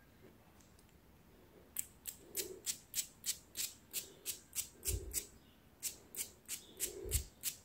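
Perfume spray bottle pumped over and over onto bedding: a quick short hiss about three times a second, some twenty sprays starting about two seconds in. Two dull low thumps come from handling partway through.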